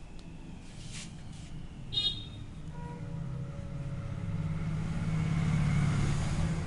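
Street traffic: a motor vehicle's engine rumble grows louder as it approaches and passes close by, peaking near the end. About two seconds in there is a brief high-pitched tone.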